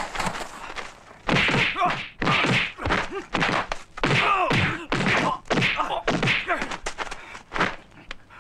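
Fight-scene sound effects of punches and blows landing in quick succession, several a second, with short swishes of swinging arms and legs and a brief lull about a second in.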